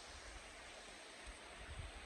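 Faint background noise: an uneven low rumble under a steady hiss.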